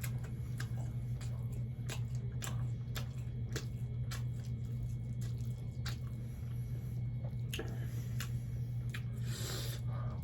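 Close-up wet chewing and mouth smacks of a person eating fried catfish with rice: many short sharp clicks and squelches, over a steady low hum.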